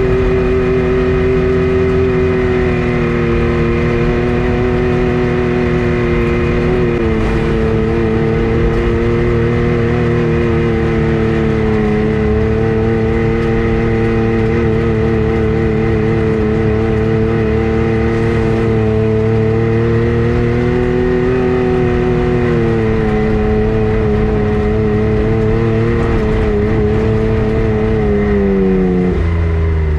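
A vehicle engine running at a steady speed, its pitch shifting slightly up and down a few times and falling near the end as it slows.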